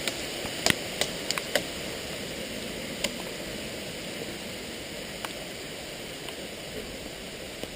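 Steady hiss of heavy rain, with scattered sharp ticks, several in the first two seconds and a few more later.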